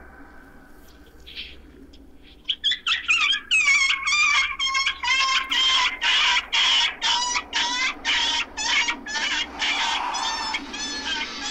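Injured dog crying out in pain after being hit by a car: a rapid run of short, high-pitched yelps, about three a second, starting about two and a half seconds in.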